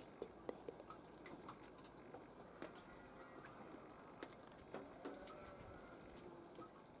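Faint water drops dripping at an irregular pace, each a sharp little tick, probably rainwater after a shower.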